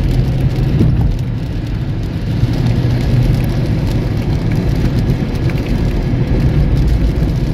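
Steady road noise heard inside a moving car's cabin: a low engine and tyre rumble on a wet road, with light rain spattering on the car.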